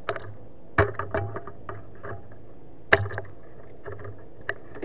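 Sharp knocks and clatter in a small fishing boat as a freshly landed coho salmon is handled in a landing net, with two loud knocks, one about a second in and one near the three-second mark, and lighter clicks between, over a steady low hum.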